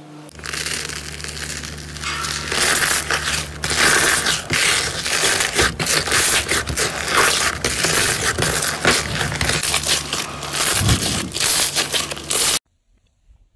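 Clear pink slime packed with tiny air bubbles being pressed and squeezed by hand in a plastic tub, giving dense crackling and popping. It cuts off suddenly about a second before the end.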